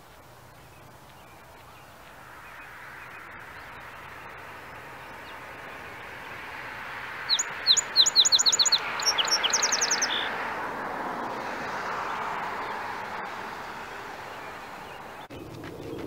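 A songbird sings one phrase about seven seconds in: a run of quick, sharp down-slurred chirps followed by a rapid trill. Underneath, a steady rush of background noise swells and fades over several seconds.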